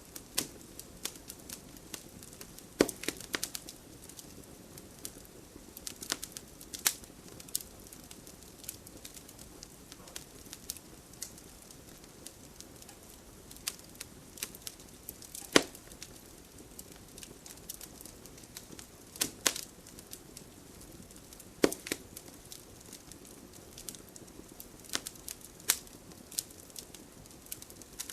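Wood fire burning in a fireplace: a low steady rush of flames with irregular crackles and a handful of louder pops from the burning logs.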